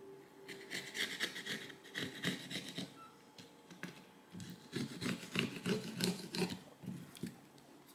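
Fingers rubbing and handling a phone's plastic display frame on a silicone work mat, making irregular scratching and small clicks.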